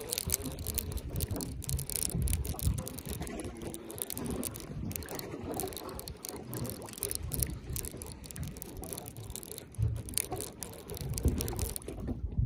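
Fishing reel clicking as line is cranked in on a bent rod, over a low rumble that comes and goes.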